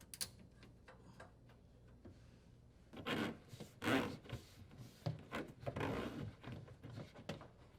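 Dishwasher drain hose being disconnected and pulled through the cabinet wall: a run of irregular rubbing and scraping noises starting about three seconds in, after a quiet stretch.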